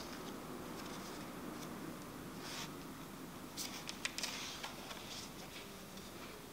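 Paper pages of a book being leafed through: a few short rustles, then a quick cluster of sharper page flicks about three and a half to four and a half seconds in, over faint room hum.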